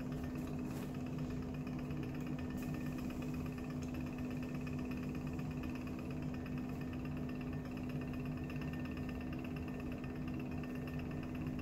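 Steady machine hum with one constant low tone.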